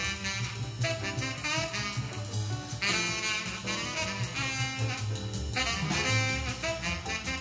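Swing jazz by a saxophone-led quartet, played back through a pair of Estelon XA floor-standing loudspeakers. The saxophone carries the melody over low bass notes and a steady, even cymbal beat.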